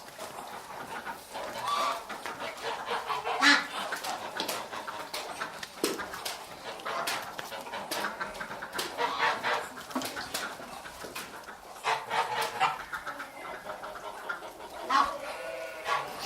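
Farmyard poultry calling repeatedly in short, separate calls, like chickens clucking.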